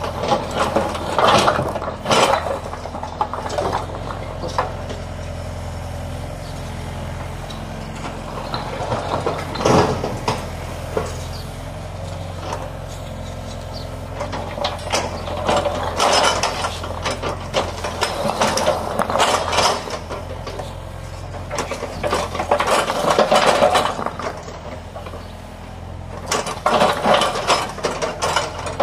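Excavator diesel engine running steadily while its steel bucket scrapes and scoops broken concrete paving blocks, the blocks clattering against each other and the bucket several times.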